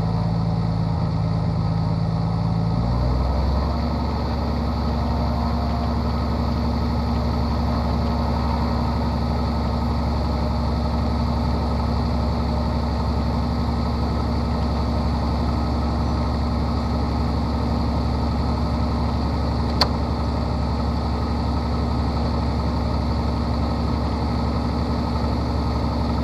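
Propeller plane's piston engine running steadily, heard from inside the closed cockpit. The engine note shifts about three seconds in, then holds steady, and there is a single sharp click near the end.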